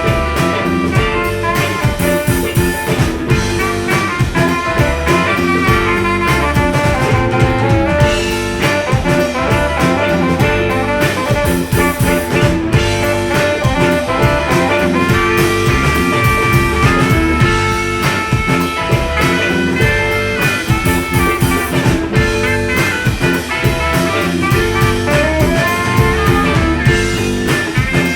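Live band playing an instrumental break of a bluesy swing tune after the singer's call to take it to G. A lead instrument plays a melody over guitar and drums.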